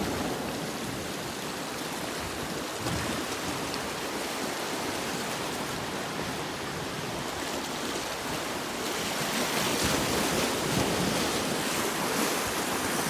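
Ocean waves washing on the shore in a steady rush of surf, easing off briefly and building again in the last few seconds.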